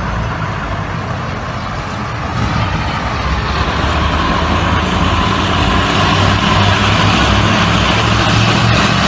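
Heavy armored vehicle engine running, growing louder over the first few seconds, with street noise. No gunfire is heard.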